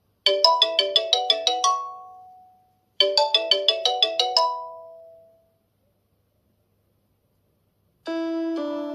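OnePlus 10 Pro ringtone: a short, quick melody of about ten notes, played twice, each time fading out. After a few seconds of silence, a different ringtone with longer held notes starts near the end.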